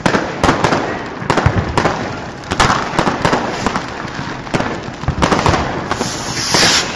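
Fireworks: firecrackers and rockets banging in quick, irregular, overlapping bangs, several a second, with a hiss about six seconds in.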